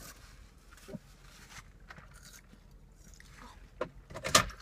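Faint eating and food-handling noises: a burger being bitten and chewed, with soft clicks and rustles, then a brief loud rustle close to the microphone near the end as food and its paper wrapping are handled.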